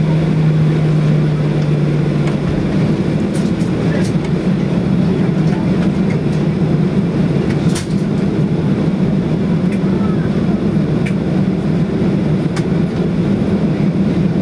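Inside the cabin of a Boeing 737-800 taxiing: steady hum of its CFM56-7 engines and airframe, with a low droning tone that shifts slightly higher about two seconds in. Occasional faint clicks and rattles.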